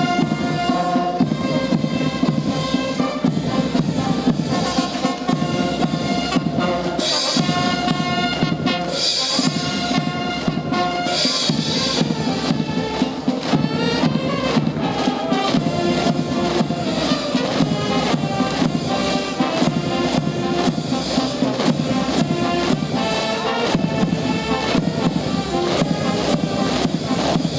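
Military brass band playing a march, sustained brass notes over a steady drum beat.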